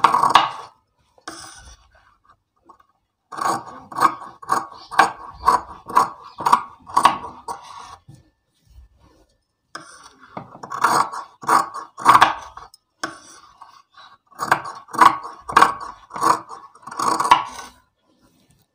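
Large fabric scissors cutting through folded layers of cotton fabric in runs of quick snips, about three a second, with short pauses between the runs.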